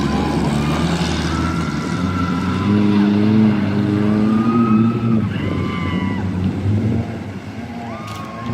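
Off-road tour jeep's engine running under load, its pitch shifting with the throttle, with some thin higher tones over it; it gets quieter near the end.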